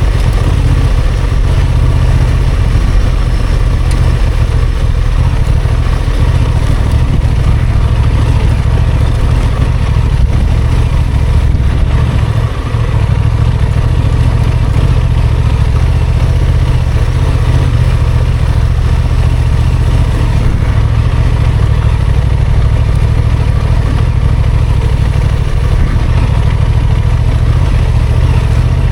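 Honda XL750 Transalp's parallel-twin engine running at low, fairly steady revs as the motorcycle is ridden, with a brief drop in level about twelve seconds in.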